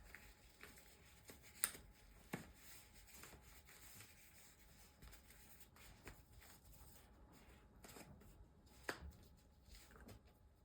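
Faint rustling and rubbing of a lens cover being worked onto a camera lens by hand, with a few soft taps, the clearest about one and a half, two and a half and nine seconds in.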